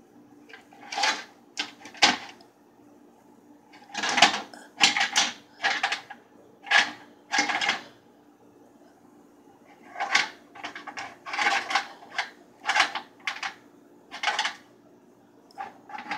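Pine cones being handled and turned on a metal oven tray: short scrapes and knocks of cone scales against the tray and each other, in three clusters, over a faint steady hum.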